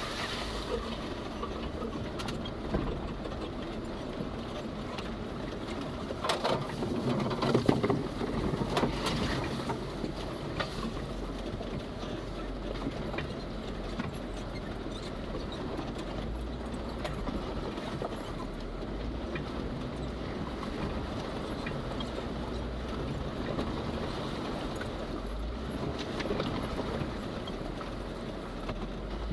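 Jeep Wrangler Rubicon Unlimited driving off-road, its engine running with a steady low rumble under road and body noise. A louder stretch of knocks and rattles comes about six to nine seconds in.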